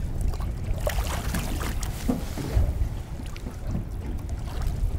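Wind rumbling on the microphone, with water splashing at the boat's side where a hooked halibut thrashes at the surface as it is gaffed; the splashing is busiest in the first couple of seconds.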